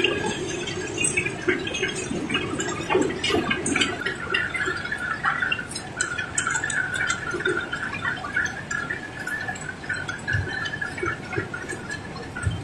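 Cobblestones clattering and knocking against one another in many small irregular clicks as the stone load slides and pours. A steady high hum comes in about four seconds in.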